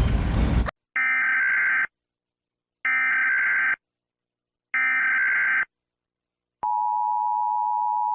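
Emergency Alert System tones: three short bursts of buzzing digital data tones (the SAME header), each just under a second with about a second's gap between them, then a steady two-tone attention signal starting about two-thirds of the way in, announcing an emergency alert.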